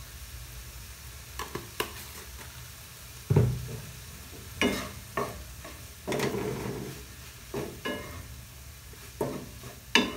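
Wooden spatula stirring and scraping mince in a metal frying pan, with a faint sizzle. About ten irregular knocks and scrapes against the pan; the loudest is about a third of the way in.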